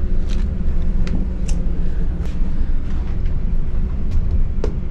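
Steady low rumble of a cargo ship's machinery heard inside a crew cabin, with a few light clicks and taps over it.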